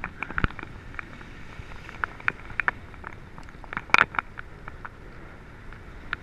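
Skis sliding and scraping over hard-packed groomed snow during downhill turns: a steady hiss with irregular crackles and clicks, and a burst of louder clicks about four seconds in.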